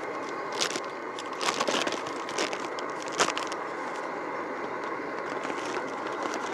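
Foil-lined coffee bag crinkling and rustling as a hand-carved wooden scoop digs into ground coffee. There are a few sharp crackles in the first three seconds, the loudest about three seconds in, over a steady hiss.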